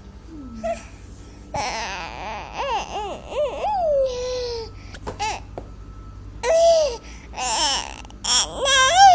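Infant babbling in high-pitched coos and squeals: a run of short calls, one sliding down in pitch about four seconds in, then three louder calls near the end, the last the loudest.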